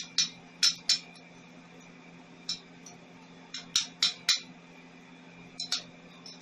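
Sharp metallic clinks and taps in several short clusters, metal pieces knocking against each other, over a steady low electrical hum.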